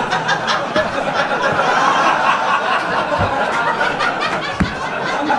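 Live audience laughing at a punchline, a dense, steady crowd laugh.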